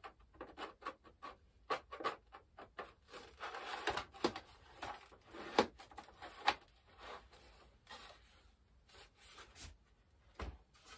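Foam RC jet wing being worked onto the fuselage by hand: soft, irregular rubbing of foam against foam with light clicks and taps, busiest in the middle.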